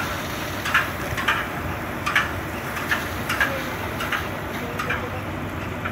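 Fire hose sending a water jet, a steady rushing noise, with about eight short high chirps scattered through it.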